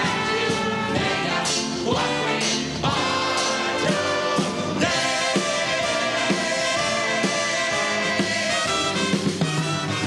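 Cast chorus singing a show tune with a pit orchestra, brass among the instruments.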